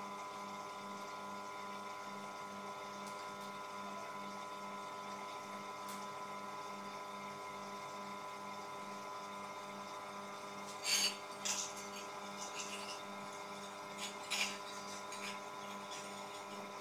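A steady electrical hum with a low tone pulsing about three times a second. About two-thirds of the way in, and again a few seconds later, come short clusters of clicks and scrapes as a heater's coiled heating-element wire is handled and fitted into its ceramic plate.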